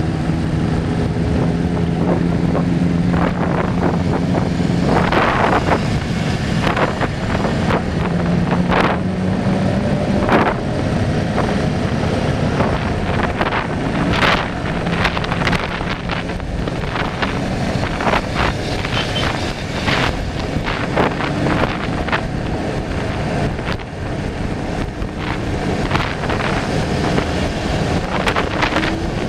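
Wind rushing over the microphone with passing road traffic. A low hum holds steady and then slowly shifts in pitch, and short knocks and bumps are scattered throughout.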